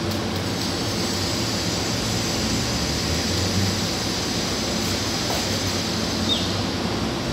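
Steady rushing roar of a working sangak bread oven, a brick oven fired by gas, with a low hum underneath.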